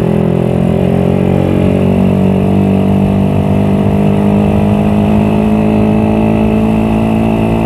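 Suzuki Satria FU single-cylinder four-stroke motorcycle engine, bored out to 200cc, running steadily at cruising speed, heard from the rider's seat. Its note creeps slightly higher toward the end.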